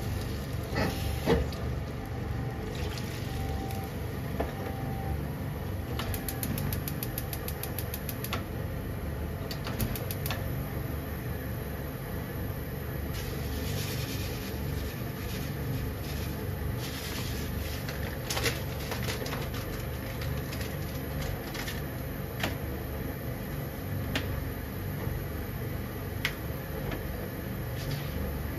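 Pork and eggplant boiling in water in a frying pan: a steady low bubbling rumble with scattered small pops and crackles.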